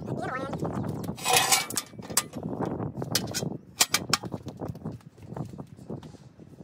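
Sharp metal clanks and knocks as a travel trailer's steel entry step is worked loose and handled, with a short scrape about a second and a half in; the knocks thin out and grow fainter after about four seconds.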